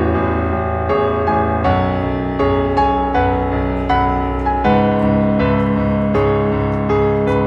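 Instrumental background music led by piano, with notes and chords changing every half second or so.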